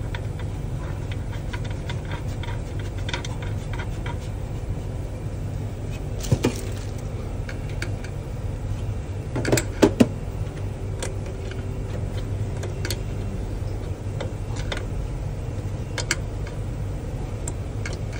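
A few sharp clicks and knocks of metal parts being handled and fitted as a vacuum packing machine is reassembled, the loudest a pair about ten seconds in, over a steady low hum.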